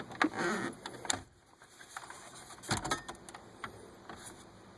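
Plastic clicks and scraping as an aftermarket radio head unit is worked into the dash opening, with a louder knock about three seconds in.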